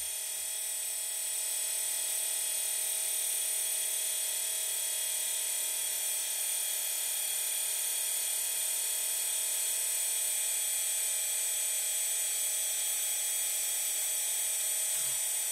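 The RC hydraulic excavator's electric motor and hydraulic pump running steadily with an even, high-pitched whine, its level rising slightly about a second and a half in.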